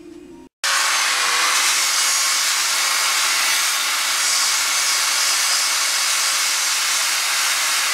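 Handheld electric rotary tool spinning an abrasive stripping wheel against a bare metal motorcycle fuel tank, a loud steady hissing grind as it knocks off the remaining finish and roughens the surface for primer. It starts suddenly just under a second in, after faint background music and a moment of quiet.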